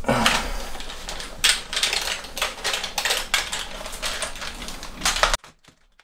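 Rapid, irregular clicking and light clatter of small hard objects, which stops abruptly a little over five seconds in.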